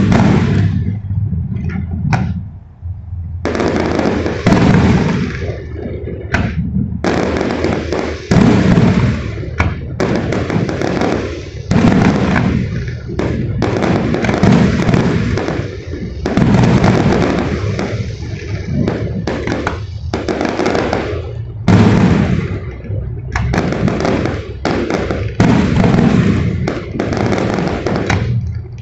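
Fireworks shells bursting in quick succession, a boom every second or so with an echoing tail, overlapping into a near-continuous barrage over a low rumble.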